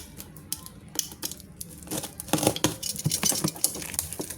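Irregular clicks, clinks and rustles of packaging and small objects being handled during an unboxing.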